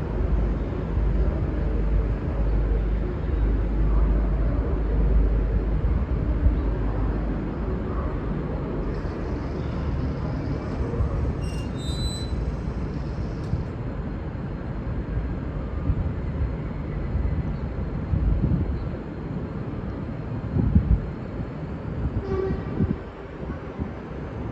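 V/Line N class diesel-electric locomotive (EMD 12-645 two-stroke diesel) rumbling past at low speed, a steady low noisy drone with a few low thumps near the end.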